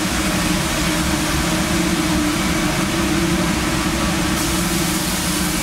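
Burger patties sizzling on a very hot Lang flat-top griddle, a steady hiss, over the steady low hum of the kitchen's exhaust ventilation.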